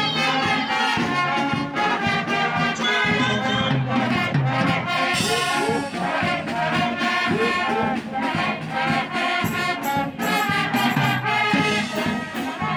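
Brass band of trombones and a sousaphone playing a tune over bass and snare drums keeping a steady beat.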